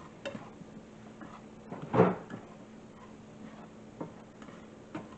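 A few light clicks and knocks of a spatula and cookware, with one louder knock about two seconds in.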